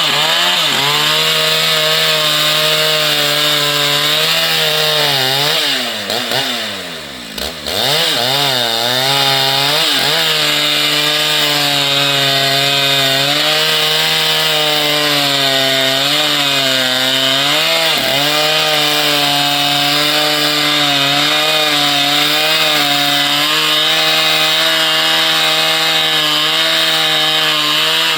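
Large two-stroke chainsaw running at high revs and cutting into wood, its pitch wavering under load. About six seconds in the revs drop sharply and the sound falls off, then climb back within a couple of seconds and hold for the rest of the cut.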